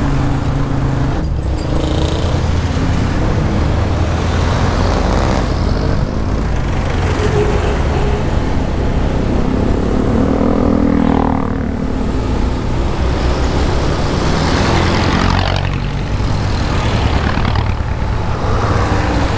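Riding a Honda Genio scooter through city traffic: the scooter's engine runs along with the sound of surrounding cars and jeepneys under a steady low rumble, with a vehicle's engine swelling briefly about ten seconds in.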